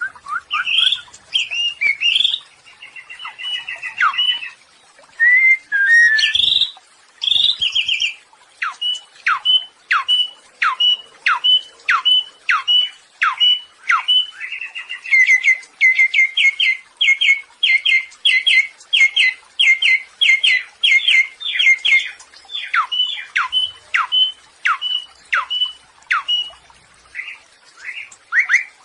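Samyong songbird singing: a mix of varied calls, then a run of quick downward-sliding whistles about two a second, giving way to faster clipped notes.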